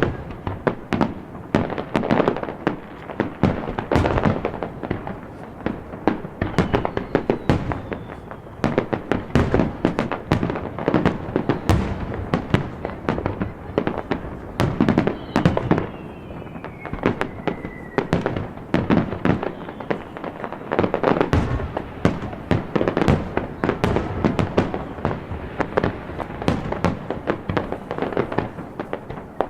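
Aerial fireworks bursting in quick, overlapping succession, with booms and crackling throughout. Twice a faint whistle falls in pitch over about a second or two.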